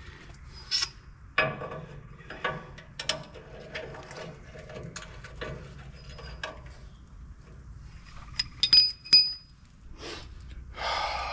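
Wrench and metal hand tools working the PTO mounting nuts: runs of light ratcheting clicks, then a few sharp, ringing metal clinks about nine seconds in.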